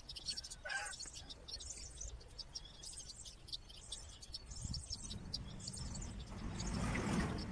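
Outdoor chirping: short, high chirps repeating more than once a second, with one lower bird call about a second in. Near the end a soft rustle builds as hands wrap bacon around bread.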